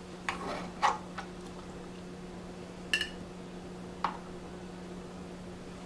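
A few light clinks and taps of a utensil against a dish, one about three seconds in ringing briefly like glass or ceramic, over a steady low hum.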